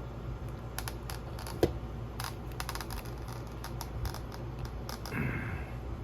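Irregular light clicks and taps from a hot glue gun and foam parts being handled while gluing, with one sharper knock about one and a half seconds in and a short scrape near the end.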